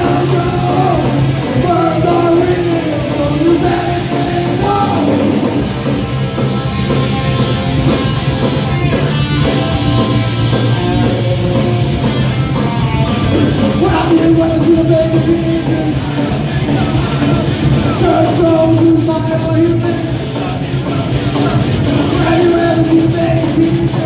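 Punk rock band playing live: electric guitars and a drum kit, with sung vocals over the top.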